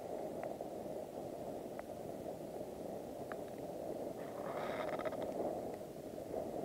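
A wood campfire burning briskly: the steady rush of the flames, with a few sharp pops from the wood and a flurry of crackling about four and a half seconds in.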